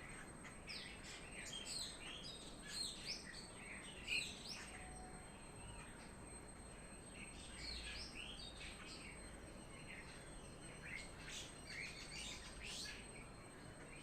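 Birds chirping: many short, quick calls, thinning to a brief lull midway before picking up again.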